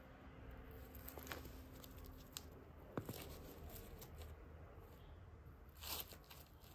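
Faint handling noises: a few soft clicks and rustles, with a brief scuffing sound about six seconds in.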